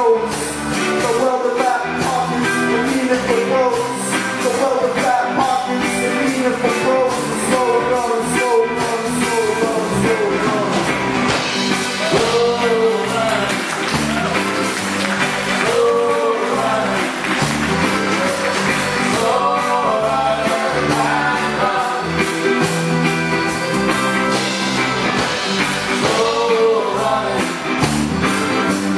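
Live band playing a rock-and-roll-style song on stage, with continuous full-band music and a melody line whose pitch bends up and down.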